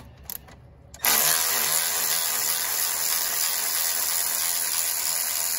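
A power ratchet starts about a second in and runs steadily with a whirring hiss, spinning out the alternator's top mounting bolt.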